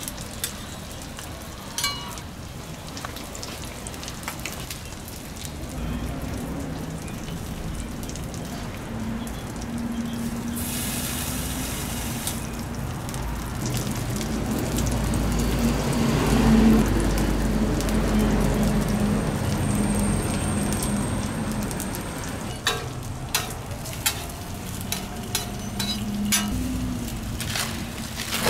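Beef burger patties sizzling on a flat-top griddle. A low steady hum swells through the middle. Near the end come several sharp clicks of metal utensils against the steel plate.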